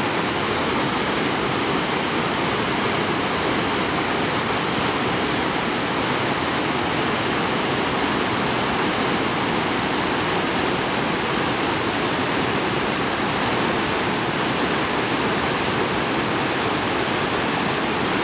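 A waterfall rushing down a rocky cascade: a loud, steady noise of falling and splashing water.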